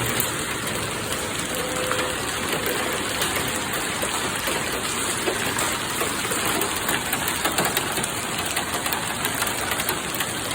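Heavy rain and wind from a tornado-producing thunderstorm: a steady rushing noise dense with small sharp impacts of rain striking surfaces.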